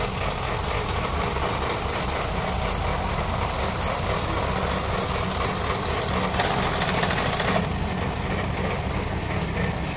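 A heavy engine running steadily under load, its sound shifting a little past halfway.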